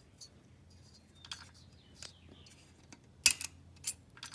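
Small metal engine parts being handled: light ticks and then a few sharp clicks and clinks, the loudest about three seconds in.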